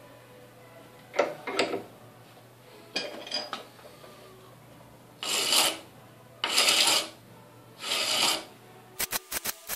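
Hand filing on a metal eccentric rod held in a bench vise: three long rasping file strokes in the second half, after a few short clicks and knocks. A quick run of sharp ticks follows near the end.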